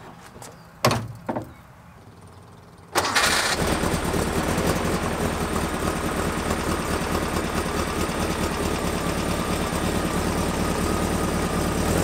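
Air-cooled flat-four engine of a 1967 VW bus, fitted with a new air-conditioning compressor and belt drive, started for the first time since the install: two light knocks early on, then about three seconds in it fires up suddenly and runs steadily. It sounds all right, with nothing falling apart.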